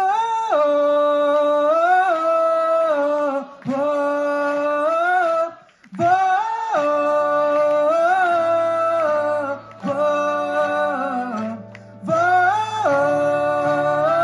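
A woman singing long held, sliding melodic phrases through a PA with a live band, the phrases breaking every few seconds. A steady low note joins underneath after about eight seconds.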